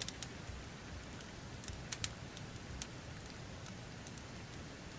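Fire crackling in a fireplace: scattered sharp pops at irregular intervals, a few in quick succession about two seconds in, over a steady soft hiss.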